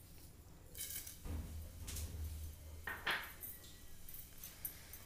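Whole spices tipped from a glass bowl into a steel wok of hot oil: a few light clinks and taps of the bowl against the pan, about a second apart, with a faint rattle of the spices landing.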